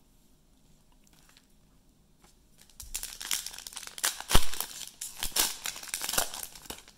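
Trading-card pack wrapper being torn open and crinkled by hand. It starts about three seconds in after a quiet stretch, as a busy run of crackling.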